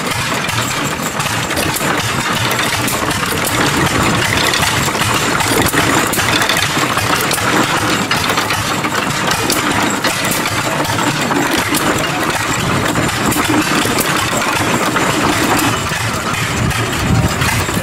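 Small antique stationary engine running steadily, its flywheel turning and driving a water pump through open gearing, with a continuous patter of mechanical clicks and knocks.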